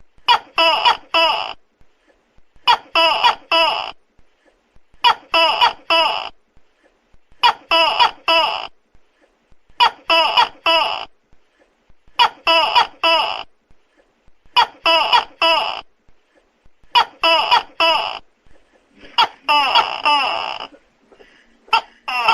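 Tokay gecko calling loudly, its short croaking calls coming in groups of three about every two and a half seconds, with a longer, denser run of calls near the end.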